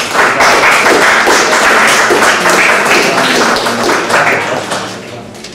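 Audience applauding, starting suddenly and dying away after about four and a half seconds.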